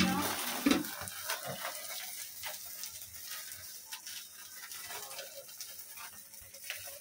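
Havan fire in a sand tray crackling and hissing as it burns, with two louder thumps in the first second.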